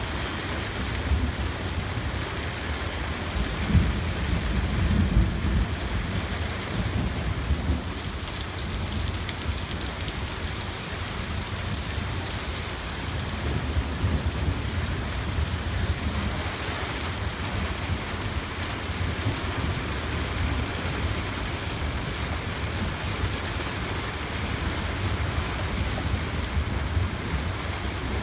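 Heavy thunderstorm rain pouring steadily, with low rolls of thunder that are loudest about four to six seconds in and again around fourteen seconds in.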